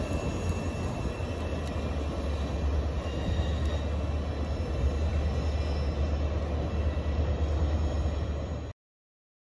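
Slow-moving train of old boxcars, coaches and a caboose rolling along curved track: a steady low rumble of wheels on rail, with a faint high wheel squeal now and then. The sound cuts off suddenly near the end.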